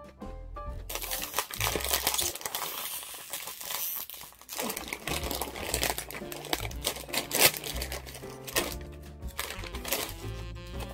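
Foil-lined plastic Kkobuk Chip snack bag crinkling and crackling as it is pulled and squeezed, hard to tear open. The crinkling starts about a second in, pauses briefly, and peaks sharply a few seconds later.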